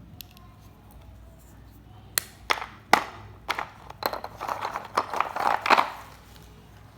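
Dry multani mitti (Fuller's earth clay) snapping and crunching: a few separate sharp cracks from about two seconds in, then a quicker run of crackling crunches that stops about six seconds in.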